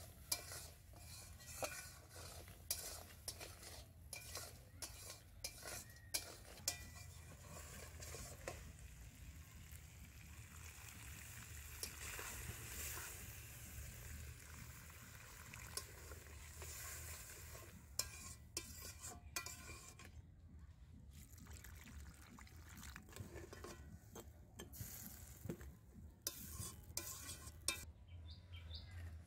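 Metal spatula stirring crab pieces frying in oil in a metal kadai, with frequent scrapes and clinks against the pan over a sizzle. Near the middle, water is poured in from a jug and the sizzle swells into a louder hiss for several seconds; after that the spatula clinks come more sparsely as the crab curry gravy cooks.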